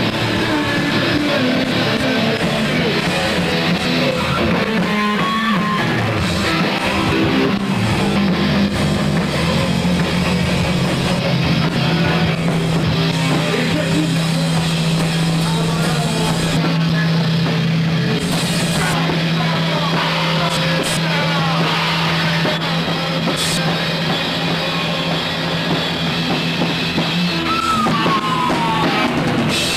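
Rock band playing live, with drum kit and electric guitar. A low note is held through most of the middle, and a note slides steeply down near the end.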